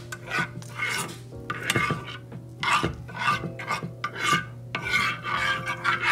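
Metal spoon scraping and stirring a thick sauce in a non-stick frying pan, in repeated short rasping strokes about twice a second.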